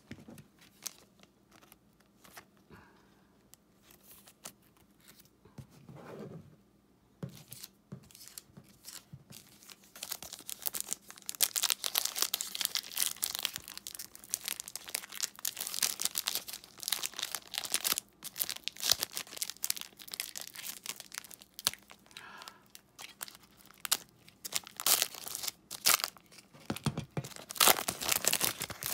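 Foil wrapper of a basketball trading-card pack being torn open and crinkled by hand. There are light scattered handling sounds at first, then dense crackling crinkle from about ten seconds in, loudest near the start of that stretch and again near the end.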